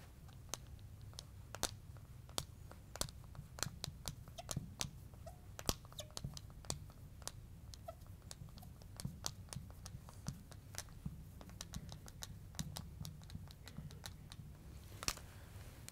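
Marker tip writing on a glass lightboard: faint, irregular clicks and taps as the letters are stroked on, over a low steady hum.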